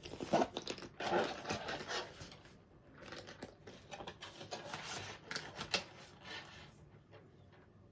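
Irregular rustling and handling noises, scrapes and light taps of a fabric zip case and packaging being handled, dying away about six and a half seconds in.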